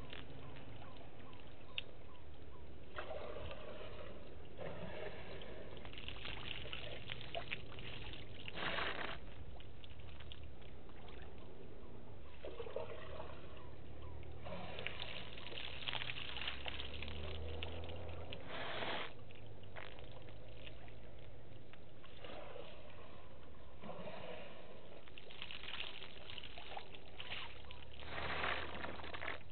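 African elephant bull drinking: water splashing and sloshing as the trunk is dipped and drawn up, with trickling as water runs from the trunk. The sounds come in short bursts every few seconds.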